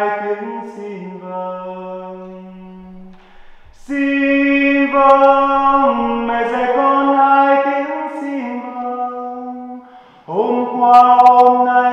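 A man singing a Vietnamese hymn to the Virgin Mary, unaccompanied, in long held notes. A phrase ends on a fading held note and breaks off about three seconds in. A new phrase starts about four seconds in, and another follows a brief break about ten seconds in.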